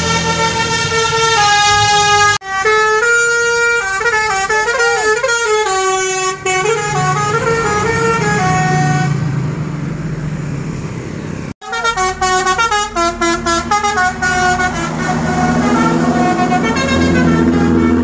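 Telolet bus horn, a multi-tone air horn sounding quick runs of stepped notes, with the bus engine running underneath. The sound breaks off sharply about two seconds in and again about two-thirds through, each time going straight into a new run of notes.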